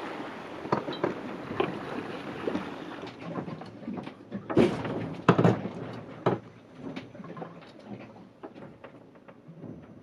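Sailboat under way at sea: wind and water rush for the first few seconds, then irregular knocks and creaks aboard the boat, with two louder knocks around the middle.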